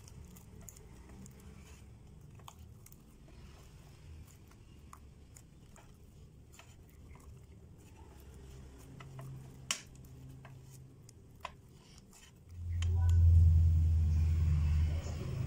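Hands kneading slime against a glass bowl: faint sticky clicks and pops, two of them sharper near the end. About twelve seconds in, a loud low rumble starts suddenly and runs on.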